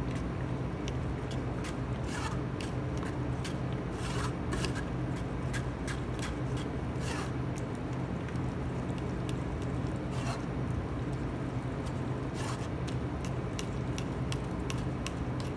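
A metal ladle scraping against a stainless steel mesh strainer as thick vegetable purée is pushed through it, giving irregular short scrapes and taps. A steady low hum runs underneath.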